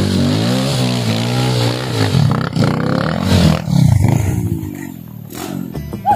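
Trail motorcycle engine revving, its pitch rising and falling, turning rough and uneven midway, then easing off near the end.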